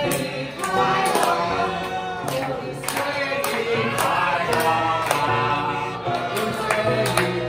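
A group of people singing a birthday song together, clapping along in a steady beat.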